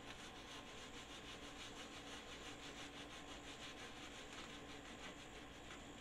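Paper towel wiped back and forth over the Cinder grill's cooking plate: faint, quick rubbing strokes.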